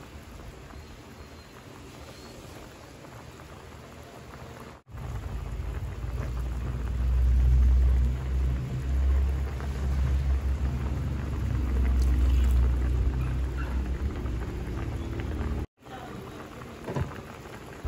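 A pot of estofado broth simmering with a steady bubbling hiss. About five seconds in the sound jumps to a louder low rumble over the bubbling while vinegar is added to the pot, then drops back to the quieter simmer near the end.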